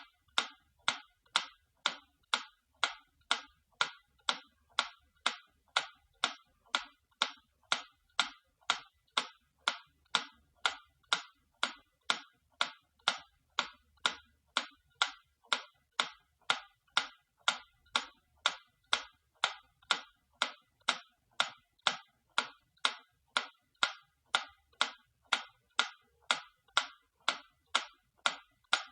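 Antique clock ticking steadily, about two ticks a second.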